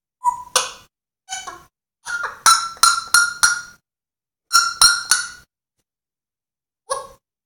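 African grey parrot mimicking a chicken: about a dozen short, sharp clucks in clusters, with a quick run of them in the middle.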